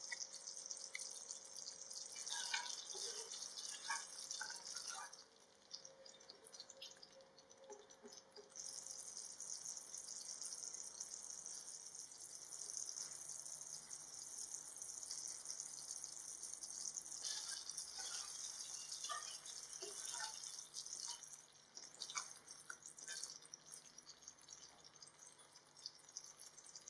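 Thick chicken curry gravy simmering in a pan: a steady sizzle with scattered bubbles popping. The sizzle dips for a few seconds about five seconds in.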